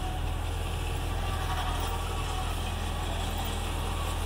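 Tractor diesel engine running steadily at a low, even rumble.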